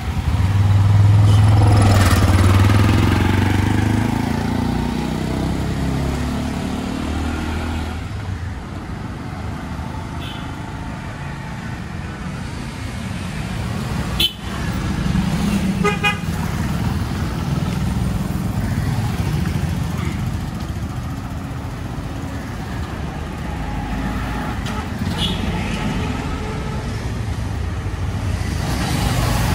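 Road traffic: a motor vehicle passes close in the first few seconds, its engine pitch falling as it goes by, over a steady rumble of traffic with a few short horn toots scattered through. A single sharp click comes about halfway through.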